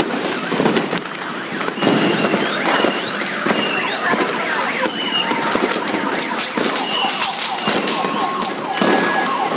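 Many fireworks going off at once: dense crackling and bangs with several whistling rockets that rise in pitch. A steady high tone sets in past the middle.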